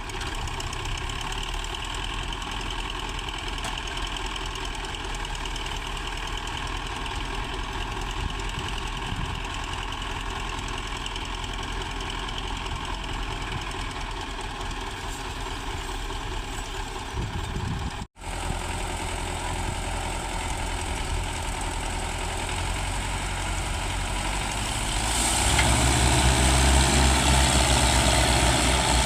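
Tractor diesel engine running steadily. The sound drops out for an instant about two-thirds of the way through, then the engine grows louder and heavier near the end.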